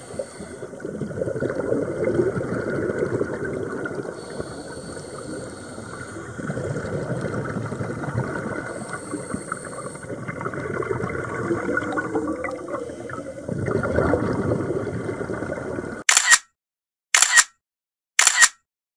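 Muffled underwater noise picked up through a camera's housing, swelling every few seconds with the rush of scuba divers' exhaled bubbles. Near the end, three camera shutter clicks with silence between them.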